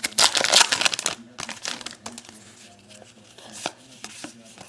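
Foil wrapper of a baseball card pack crinkling loudly for about a second. After that come a few soft clicks and rustles as the cards are handled.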